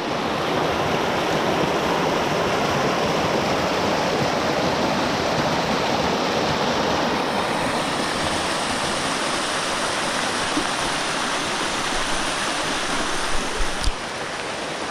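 Rushing water, a steady full hiss that dips slightly near the end.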